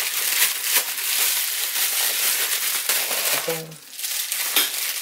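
Bubble wrap crinkling and crackling as it is handled and pulled open by hand, a dense run of small crackles that pauses briefly about three and a half seconds in.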